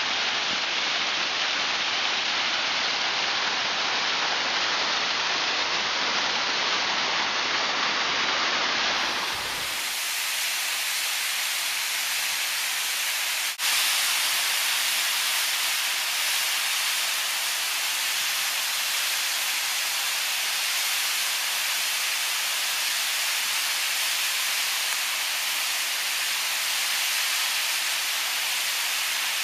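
Waterfall cascading over rock ledges: a steady rushing of falling water. About nine seconds in it changes to a thinner, higher hiss, with one brief click a few seconds later.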